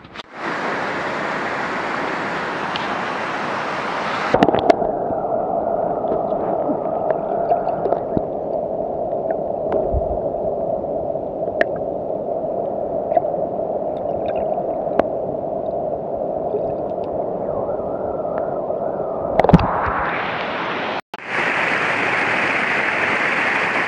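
River water heard through a camera held underwater: a muffled, steady gurgling with scattered small clicks, starting with a knock about four seconds in. Near the end it cuts to open-air rushing water of a small rapid pouring over rocks.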